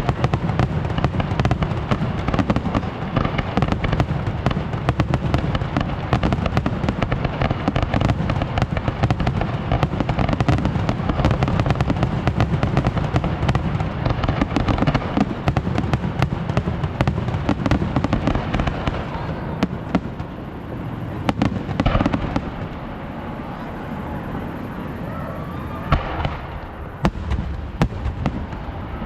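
Fireworks display: a dense, continuous barrage of bangs and crackles that thins out after about nineteen seconds to a few separate booms.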